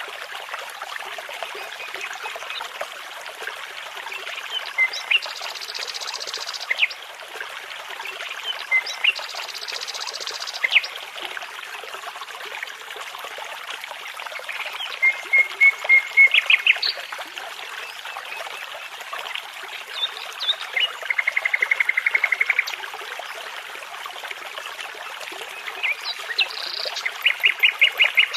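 Nightingale singing over the steady rush of a babbling brook: separate song phrases every few seconds, made of fast trills of repeated notes, short whistles and buzzy higher phrases.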